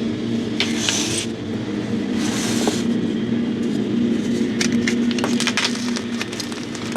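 A lawn mower engine running steadily in the background, a loud hum throughout, over dyed gym chalk being crushed: two crumbly, hissing crunches early on and a run of short cracks and snaps in the second half.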